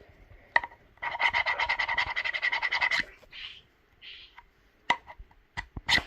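A knife blade scraping sticky price-tag residue off a sheath: a fast, even chatter of about a dozen strokes a second with a buzzing tone, lasting about two seconds, followed by scattered clicks and taps.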